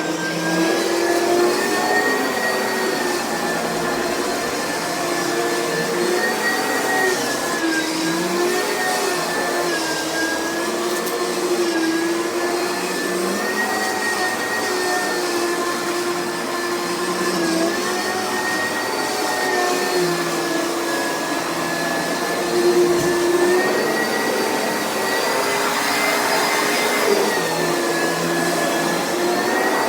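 Oreck vacuum cleaner running, a steady motor whine whose pitch rises and dips every second or two.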